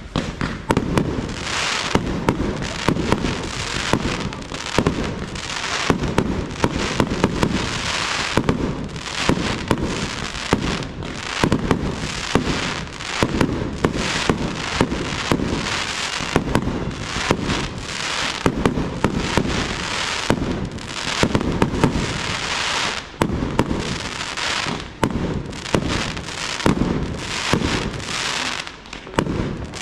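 Aerial fireworks display: shells launching and bursting in rapid, almost unbroken succession, a dense run of bangs and reports with a short lull near the end.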